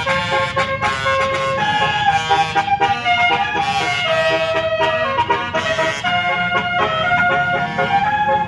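Basuri multi-tone musical horn playing a tune of held notes, several sounding together, stepping up and down in pitch.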